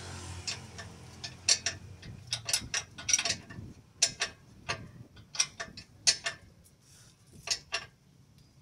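Hand tools clicking and clinking on metal: irregular sharp clicks, often in pairs, thinning out near the end.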